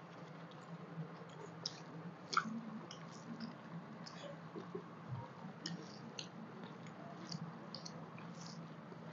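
Faint eating sounds from several people eating with their hands: chewing, small mouth clicks and the soft squish of fingers mixing rice on a banana leaf, scattered irregularly over a low steady hum.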